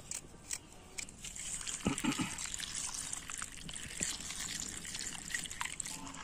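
A few light knife clicks from peeling a beetroot, then, about a second and a half in, a steady stream of water poured into an iron kadai full of vegetables, splashing and trickling over them.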